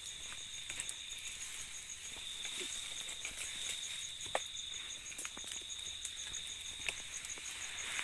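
Night insect chorus: a steady high trill with a higher, rapidly pulsing chirp over it. Scattered light clicks and rustles from grass and dead birds being handled.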